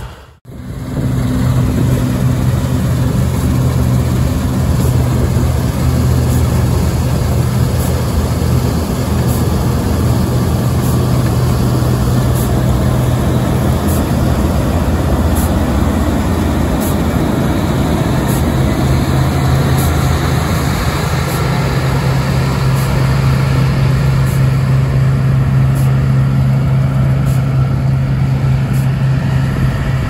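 New Holland TX68 Plus combine harvester running steadily while cutting and threshing winter barley, a loud, even engine drone from its 310 horsepower Iveco engine. The drone's tone shifts slightly about halfway through.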